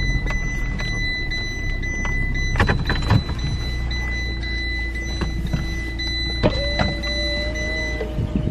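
Car running slowly, a low steady rumble heard from inside, with a steady high-pitched electronic tone that stops near the end. There are a few sharp knocks, and a lower hum comes in about two thirds of the way through.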